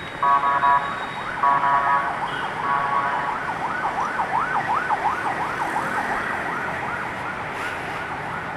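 Ambulance electronic siren: a few short buzzing horn-like blasts, then a fast rising-and-falling yelp about twice a second that slowly grows fainter.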